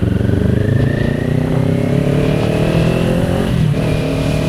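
Kawasaki Ninja 400's parallel-twin engine under way, its pitch rising steadily as it accelerates through a gear, then dropping abruptly at an upshift near the end and carrying on steadily.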